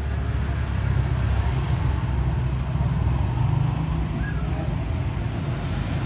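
Steady low rumble of road traffic going by, with no distinct events standing out.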